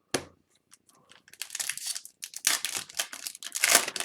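Crinkling and tearing of a hockey card pack wrapper being ripped open and handled, in irregular crackly rustles that build up over the last few seconds.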